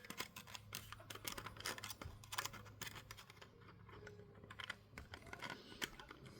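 Irregular, quick small clicks and scrapes of pliers working on the lid of a Sony MZ-R3 MiniDisc recorder, bending it back down level, over a faint steady low hum.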